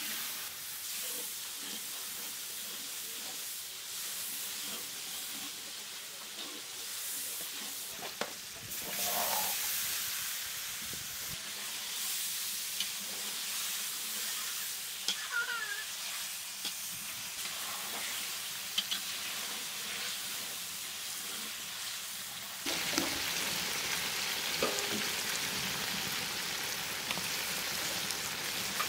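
Pieces of carp frying in oil and turmeric gravy in a metal wok, sizzling steadily, with a steel spatula scraping and clicking against the pan as the fish is stirred. The sizzle gets louder about three-quarters of the way through.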